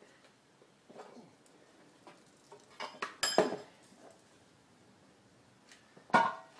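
Metal tools clinking and clanking as they are handled and set down: a few separate knocks, the loudest about three seconds in and again near the end, each with a short metallic ring.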